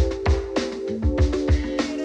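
Background music with a steady drum beat under held chords.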